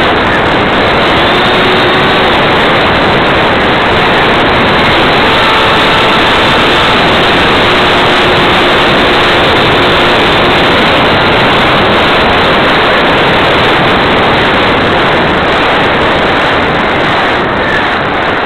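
Steady rush of airflow over a small onboard camera on a Habu RC electric ducted-fan jet, with the fan's whine faintly under it at low throttle as the plane glides in on a landing approach.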